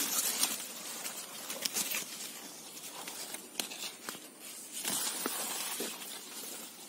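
Leaves of corn and squash plants rustling and brushing while young squash are cut from the vine with a knife, with several sharp snaps and clicks as stems are cut and broken.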